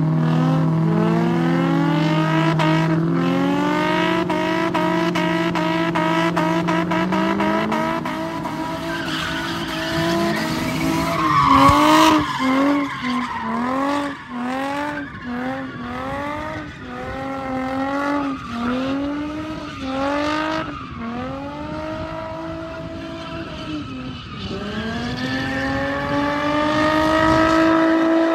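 Drift cars' engines held high in a tandem slide, then one car drifting with repeated throttle stabs, its engine pitch rising and falling about once a second. Tyres squeal throughout, loudest about twelve seconds in.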